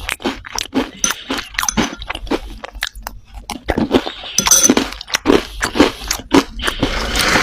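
Dry red clay crunching and breaking in a quick, irregular run of sharp crunches, thickening into a denser crackle about four and a half seconds in and again near the end.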